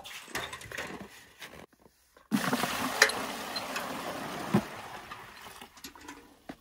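Water poured from a metal well bucket into another bucket: a splashing rush starts suddenly about two seconds in and runs for about three seconds before tailing off, with a couple of sharp knocks during the pour. Quieter handling noises come before it.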